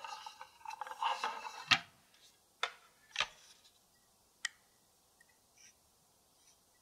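A fluted metal tart pan with a removable base being handled on a wooden board. There is a short rustle, then a sharp clack as the base is taken out of the ring, then three lighter knocks as the pieces are set down.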